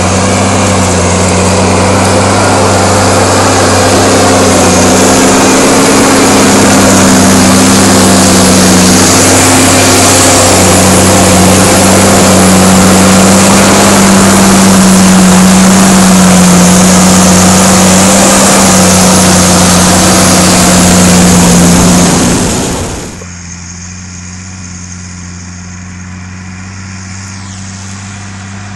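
New Holland TG285 tractor's six-cylinder diesel engine running steadily under load at close range while pulling a four-furrow plough through the soil. About three-quarters of the way through, the sound cuts suddenly to a much quieter tractor engine heard from farther off.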